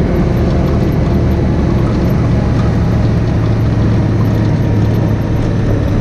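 Side-by-side utility buggy's engine running as it drives, a loud steady drone with a low hum under it.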